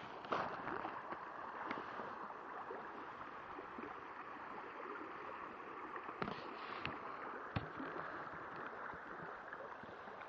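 River water flowing steadily, a continuous rushing hiss, with a few short sharp clicks and knocks near the start and about six and seven and a half seconds in.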